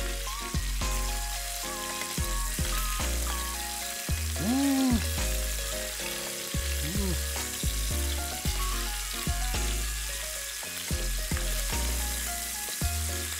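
Bone-in pork spare ribs sizzling steadily as they sear in salad oil in a frying pan over medium heat, browning on the surface only. Background music with stepped low notes plays over it.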